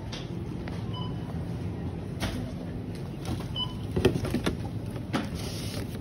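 Steady low background rumble with several short knocks and clatters, the loudest about four seconds in, as a plastic shopping basket holding plastic drink bottles is carried and set down.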